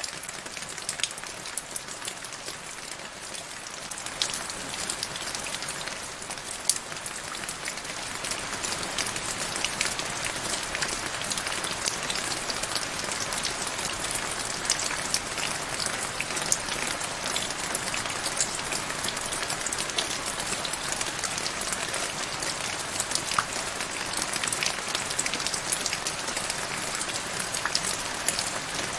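Rain falling into a shallow puddle on grass: a steady patter of drops hitting the water, with many small separate splashes, growing louder over the first ten seconds.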